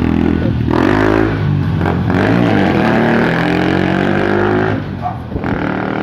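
Motorcycle exhaust through an aftermarket Apido pipe welded straight on without its elbow, the bike accelerating away: a short break about a second in as it shifts, then the engine note climbing steadily, falling away near the end as it rides off.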